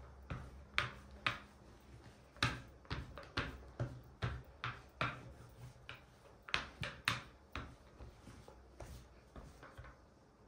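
Rolling pin rolled back and forth over a sheet of dough on a hard worktop, giving irregular light clicks and knocks, two or three a second, that die away near the end.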